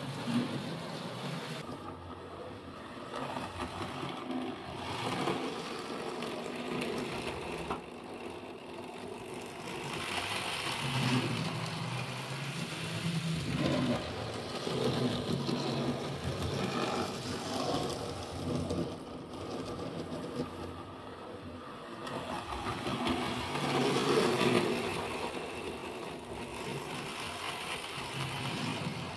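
Arnold Rapido N-gauge model passenger train running on the layout's track: a small electric motor whirs and the wheels rattle over the rails. It gets louder and quieter as the train comes nearer and goes away.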